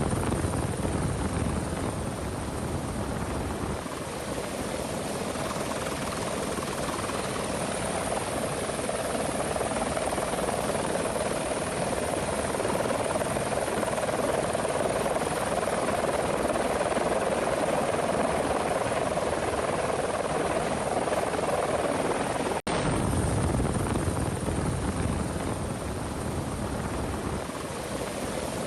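Helicopter rotor and engine running steadily, a continuous dense noise. It breaks off for an instant about three quarters of the way through, then resumes.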